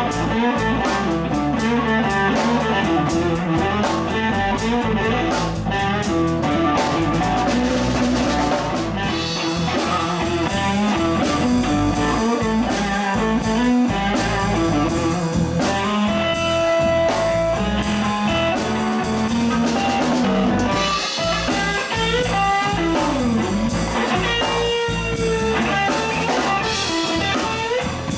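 Live blues-rock band playing: electric guitar leading over electric bass and a drum kit, with a few bent guitar notes near the end.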